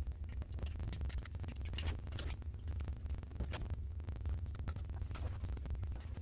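Light clicks and taps of small parts being handled as a MacBook Pro logic board is seated in its aluminium case and its cables fitted, over a steady low hum.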